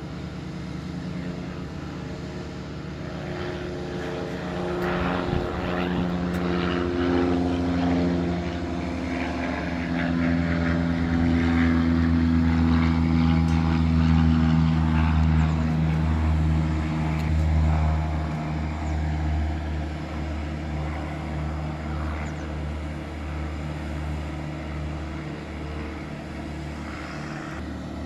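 Propeller airplane's engine droning as the aircraft moves nearby on the airfield, growing louder to a peak past the middle and then easing off.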